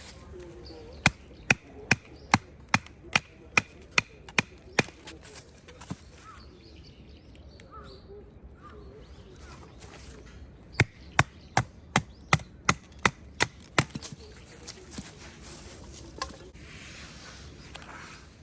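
Firewood being chopped in two runs of sharp, regular strikes, about two to three a second. The first run starts about a second in and the second about eleven seconds in; each lasts three to four seconds.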